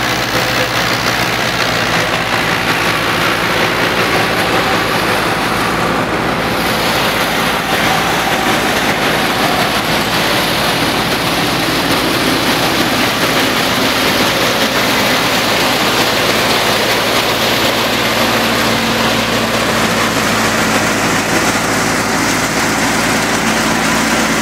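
1987-model Fiat tractor engine running steadily under load, driving a belt-driven guar thresher, its drive and threshing drum adding a dense, continuous rattle and rush over the engine's hum.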